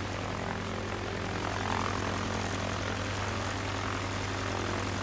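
Aircraft engine droning steadily, an even low hum with its overtones held at one pitch.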